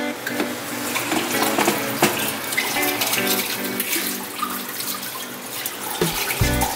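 Background music with a plucked melody over a steady rushing, water-like hiss.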